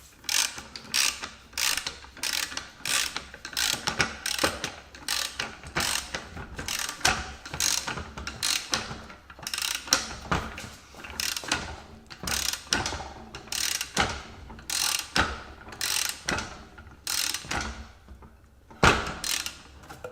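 Ratchet wrench clicking back and forth in repeated strokes, about one and a half a second with a few short pauses, as it turns the screw of a ball joint separator to press the lower control arm off the vertical link.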